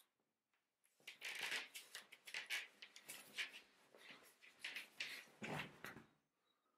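Clothing rustling and scuffing as two people grapple in a close embrace, a run of short scratchy rustles with a heavier thump about five and a half seconds in.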